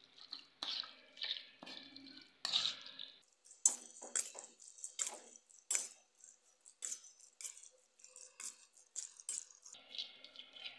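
Raw chicken pieces being tossed with a spoon in a stainless-steel bowl: a quick, irregular run of wet smacks and scrapes of the spoon on the metal.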